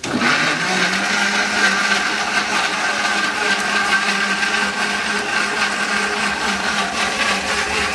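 Electric mixer grinder switching on suddenly and running steadily, grinding onion, tomato, green chilli, ginger and garlic in its steel jar into a masala paste; a low motor hum with a higher whine over it.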